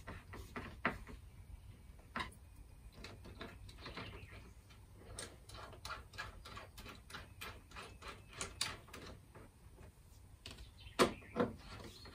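Light metallic clicks and taps of a screwdriver working the terminal bolts of a 12 V lithium iron phosphate battery as cable lugs are fastened on, irregular throughout, with two sharper clicks near the end.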